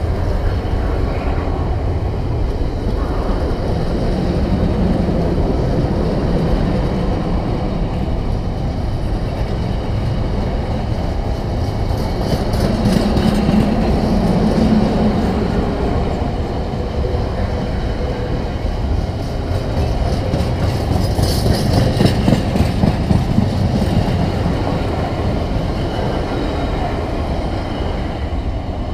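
Container freight train wagons rolling past on the near track, a steady rumble of wheels on rail, with runs of clicking from the wheels over the rail joints about halfway through and again later.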